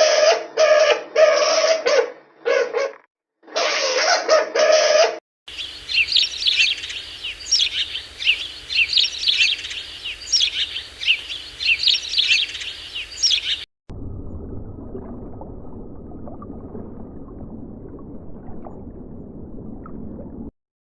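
Three animal sound clips one after another: about five seconds of loud repeated calls, then birds chirping rapidly in short high notes for about eight seconds, then a low, rough, steady noise for the last seven seconds or so.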